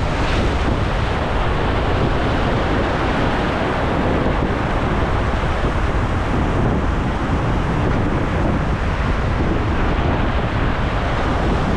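Ocean surf surging and washing over a rock ledge, a steady loud rush, with wind buffeting the microphone as a low rumble.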